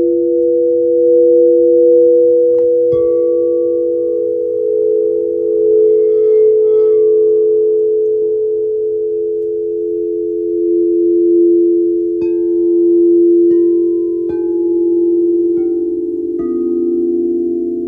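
Singing-bowl-like tones humming steadily, overlapping, with chime notes struck now and then, each ringing briefly and fading; near the end the low tones step down in pitch.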